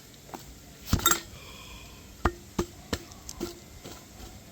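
Sharp metallic knocks and clanks of tools and parts being handled while working on a mini bike. There is a loud double knock about a second in, then four more spaced a third to half a second apart, some ringing briefly.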